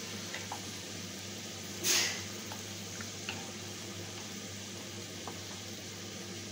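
Mutton pieces sizzling steadily in oil and spices in a kadai, the slow frying of a kosha mangsho. There is a brief louder hiss about two seconds in and a few faint ticks.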